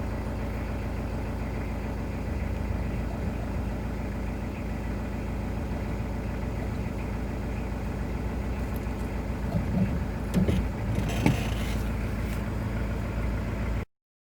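Citroën Berlingo 1.9-litre diesel engine idling steadily, running properly now that the no-start fault is sorted. A few short knocks come about two-thirds of the way through, and the sound cuts off abruptly near the end.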